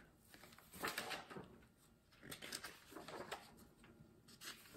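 Faint rustling and handling of a large hardcover picture book's paper pages as it is opened and its pages turned, in a few short bursts.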